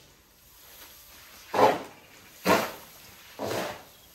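Shovel scooping and tossing a pile of barley and corn feed mix, three rasping strokes about a second apart as the grain is turned over and thrown on top of the pile to blend it.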